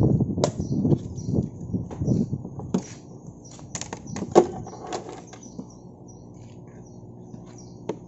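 Clicks, knocks and rustling of hands working on a scooter's seat and under-seat storage, with a sharp knock about four seconds in the loudest. Small birds chirp repeatedly in the background.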